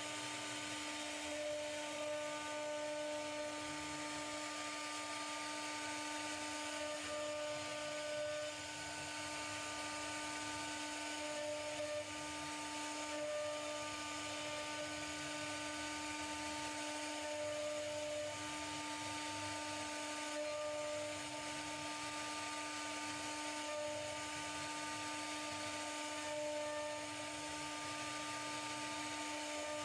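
Quiet, steady whine of a small electric motor or power tool running, with a constant hiss and a higher tone that cuts in and out every second or two.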